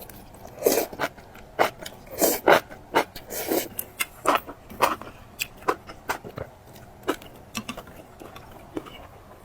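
Close-up chewing and biting of food: a quick run of short chewing sounds that thins out to occasional ones after about six seconds.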